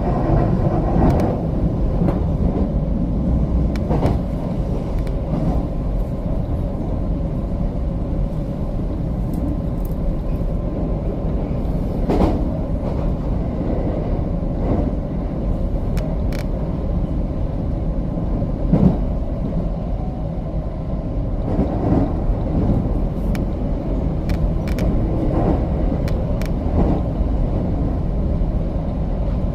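JR West 225 series electric train running, heard from inside the car: a steady low rumble with scattered short knocks.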